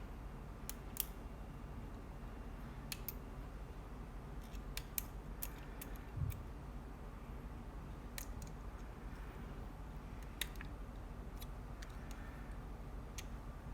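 Faint, scattered light clicks of small hand tools on an iPhone X's parts during disassembly, at irregular intervals, with a soft thump about six seconds in.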